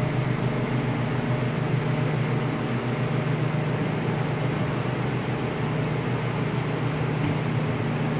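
Steady low machine hum with an even hiss of moving air, unchanging throughout.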